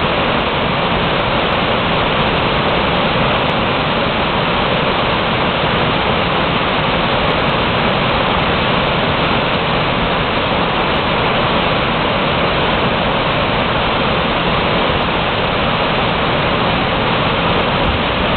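Large waterfall pouring steadily: an even rush of falling water that does not let up.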